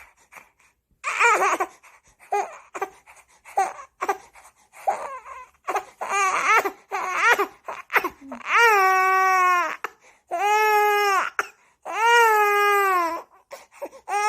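Baby fussing with short broken cries that build, about halfway through, into full crying: three long, loud wails a second or so each, separated by short gasps.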